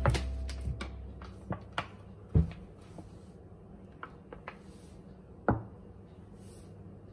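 Scattered light taps and knocks of a ceramic mug against a bowl, with a flour bag being handled as flour is scooped and poured. Two louder knocks come about two and a half and five and a half seconds in.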